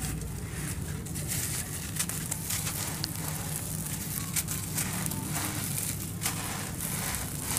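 Dry sand-cement lumps crushed and crumbled in bare hands: a dense, gritty crackle of breaking grains, with many small sharp cracks.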